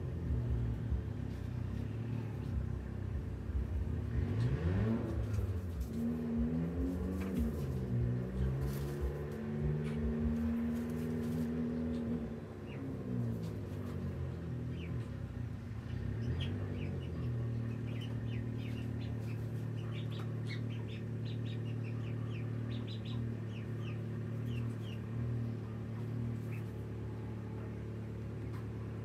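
A motor engine running, its pitch rising and falling through the first dozen seconds, then holding steady. A bird chirps in short repeated calls through the second half.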